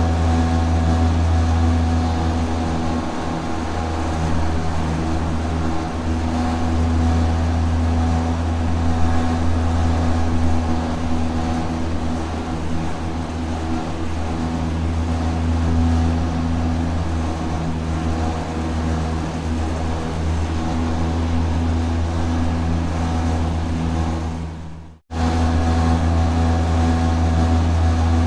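Rotating industrial factory machinery running with a steady, deep hum and several steady tones above it. It cuts out abruptly for a moment about 25 seconds in, then comes straight back unchanged.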